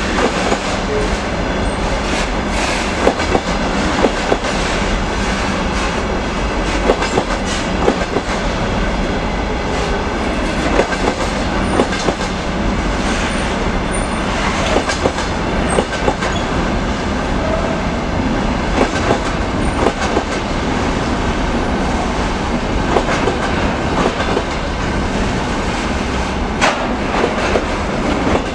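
Container train of loaded flatcars rolling past: a steady rumble of wheels on rail, with irregular sharp clicks and knocks as the wheelsets run over the rail joints.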